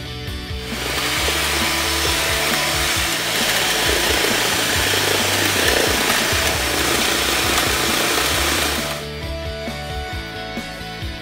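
Electric hand mixer beating a liquid egg batter in a stainless steel bowl, with a steady whirring that starts just under a second in and stops about nine seconds in, over background music.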